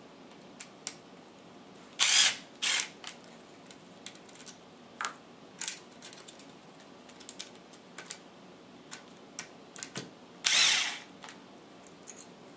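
Cordless drill-driver with a Phillips bit running in short bursts, backing out the stock swivel screws of a replica drill rifle: two quick runs about two seconds in and a longer one near the end, with small clicks and taps of handling between.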